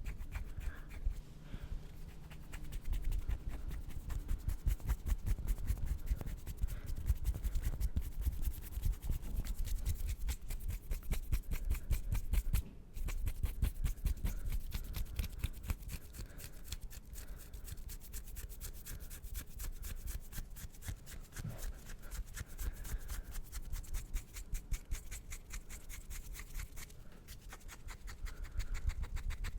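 Hands rubbing and scratching fast and hard right at the microphone, a rapid, continuous flurry of strokes with a brief break about 13 seconds in.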